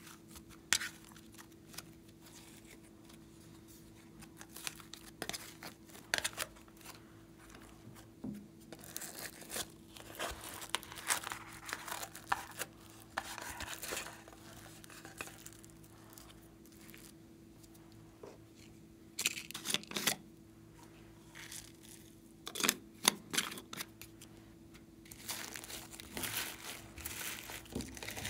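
Glossy slime and foam-bead floam being peeled out of a plastic tray and pressed into more slime by hand: sticky peeling and the small clicks and rustles of the foam beads, coming in irregular bursts.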